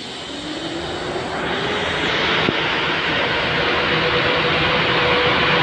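ZSSK Cargo class 131 twin-unit electric locomotive running light along the platform, its noise growing louder as it comes closer, with a whine that rises in pitch over the first few seconds and then holds steady.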